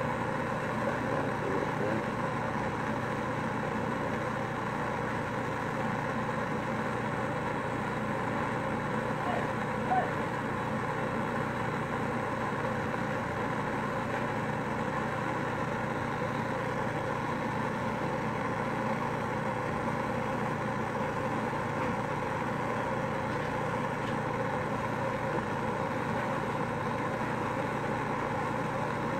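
Handheld gas torch burning steadily, an even hissing rush of flame as glass rods are heated in it, with one small click about ten seconds in.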